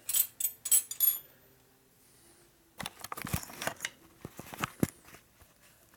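A wrench on a bolt and other metal hand tools clinking: several sharp, ringing metal clinks in the first second, then a run of clicks and rattles about three seconds in as a bolt is tightened.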